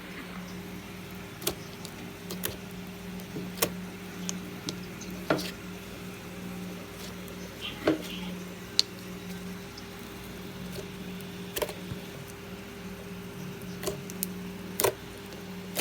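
Glossy slime being handled, giving about a dozen irregular sharp clicks and pops, some in quick pairs. Under them runs a steady low hum.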